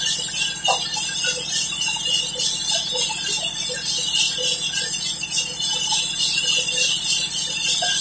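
Sawmill band saw running: a steady motor hum under a loud, high-pitched rattling hiss from the blade.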